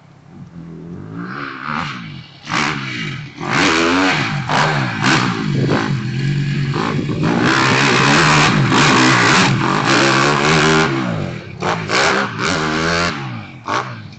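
Dirt bike engine revving up and down as the rider works the throttle and shifts gears, its pitch rising and falling again and again. It is loudest in the middle as the bike passes close by, then fades.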